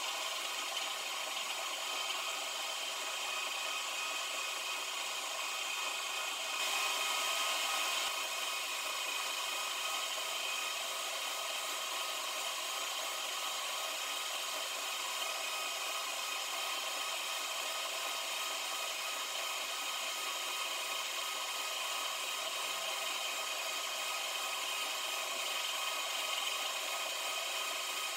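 Hi-Power metal lathe running while the tool takes a full-diameter turning cut on a large welded disc: a steady whine over the hiss of the cut, slightly louder for a moment about six seconds in. The cut runs evenly along the part.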